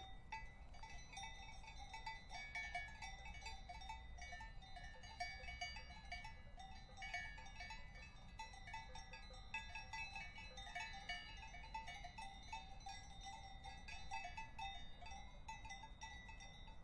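Several cowbells worn by cattle clanking irregularly and without pause, their ringing tones overlapping in a continuous jangle over a faint low rumble.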